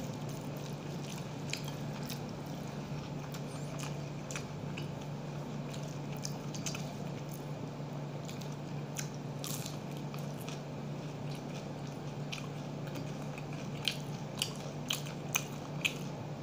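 Close-up eating sounds: a man chewing a mouthful of rice and fried fritters, with scattered wet mouth clicks and crunches that come more often near the end. A steady low hum runs underneath.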